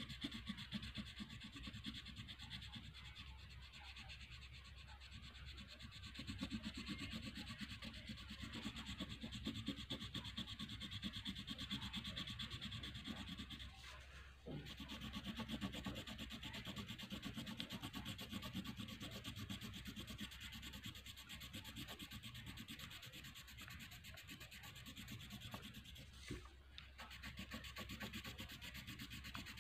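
A black crayon scratching across paper in quick, short shading strokes, pausing briefly twice.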